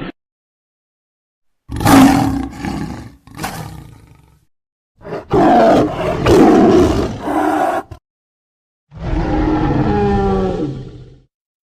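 Made-up monster roars for the Hodag: three separate bursts of roaring with dead silence between them. The first starts loud and fades away, the middle one is several short roars in a row, and the last is a longer steady roar that cuts off suddenly.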